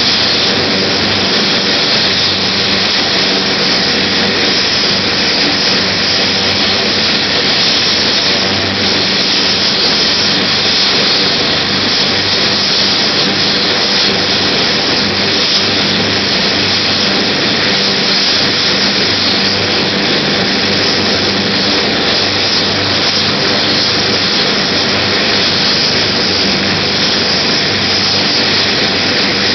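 An AgustaWestland AW139 air ambulance helicopter running steadily on the helipad. Its twin turboshaft engines are up to speed and the main rotor is turning, but it has not yet lifted off.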